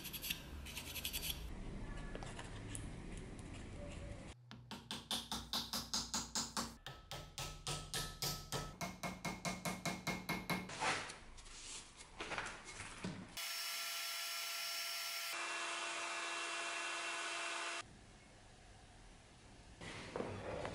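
Hand tools trimming a wooden wedge in an axe eye. A chisel scrapes the wood, then about six seconds of regular saw strokes at roughly three a second. Near the end comes a few seconds of a steady machine whir that starts and stops abruptly.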